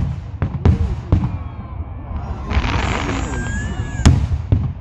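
Aerial firework shells bursting, with four booms in quick succession in the first second or so. A hissing crackle follows midway, then the loudest bang about four seconds in, with a smaller one just after it.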